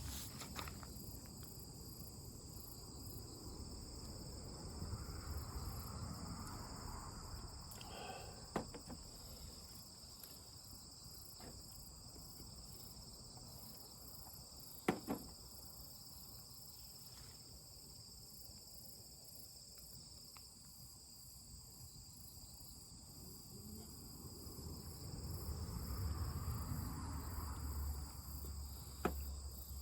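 Steady chorus of insects, likely crickets, a continuous high shrill made of several held tones, with a few sharp clicks and two soft low swells of noise.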